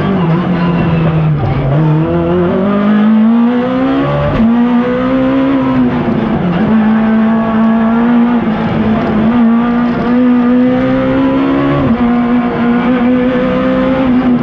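A Peugeot 106 slalom car's 1.6-litre four-cylinder engine, heard from inside the cabin, driven hard. The revs drop near the start, climb for a couple of seconds, fall sharply at an upshift about four seconds in, then stay high with brief dips at further gear changes.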